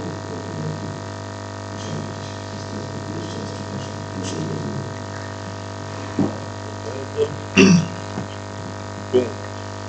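Steady electrical hum made of many even tones, with faint, distant speech over it in the first half. A few short, louder sounds come from about six seconds in.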